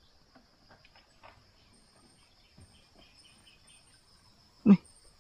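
Steady high insect chirring, with faint small ticks of stones being handled in shallow water. A short vocal sound from a man comes near the end.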